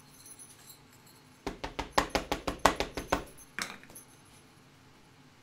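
A hand patting quickly on the closed lid of a stamp-positioning platform to press a stamp onto the card: about a dozen sharp taps in under two seconds, starting about a second and a half in, then one more knock a little later.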